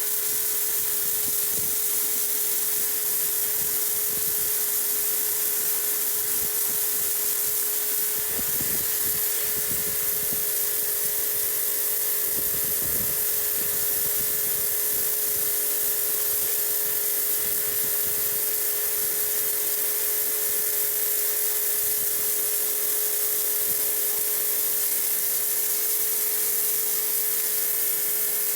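Electric pressure washer running with its water jet spraying steadily against a painted wall to strip emulsion paint: a constant hiss over a steady motor whine.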